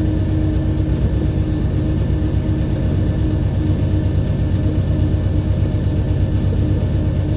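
Train's diesel locomotive engine running steadily, a low even drone with a constant hum.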